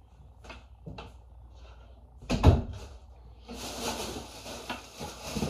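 Knocking and handling noises: a few light clicks, a single heavy thump about two and a half seconds in, then a steady rustling over the last two seconds.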